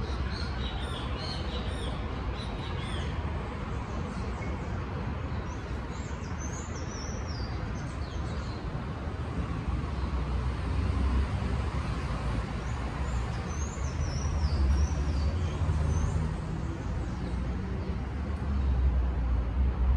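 Small birds chirping in several short, falling phrases, over a steady low rumble.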